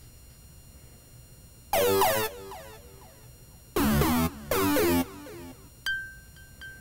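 Electronic synthesizer music: three loud chords, the last two close together, then a few short high pings near the end.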